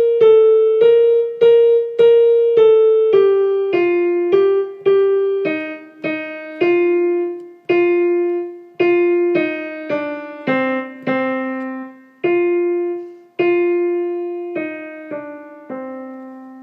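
Piano playing the alto part of the choral piece as a single-note melody, one note at a time. The notes come about two a second, with a few held longer, and the line steps down in pitch over the stretch.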